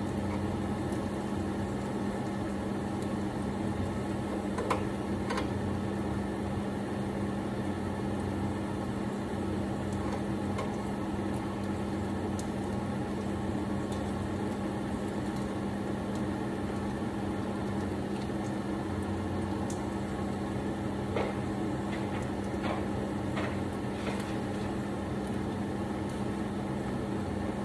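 Kitchen range hood fan running with a steady hum and a low tone, with a few light clicks over it.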